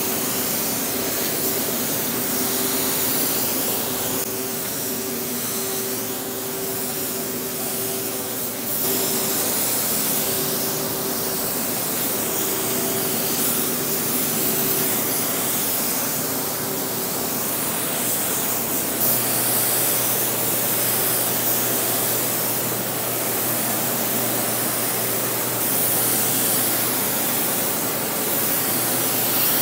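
Spray gun hissing steadily as compressed air atomises the first coat of base coat, with a faint steady hum from the inflatable booth's blower fan underneath.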